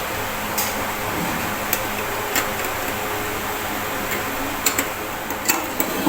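Steady background hum with scattered light clicks and ticks, a few of them close together in the last couple of seconds.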